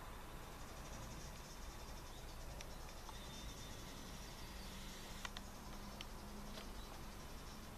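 Faint insects chirping outdoors: a high, even trill, with a few soft clicks here and there.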